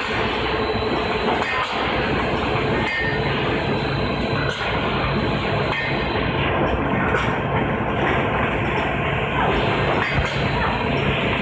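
Pet treat production line machinery running: a loud, steady mechanical din with a low hum that sets in about three seconds in, and a few light clicks.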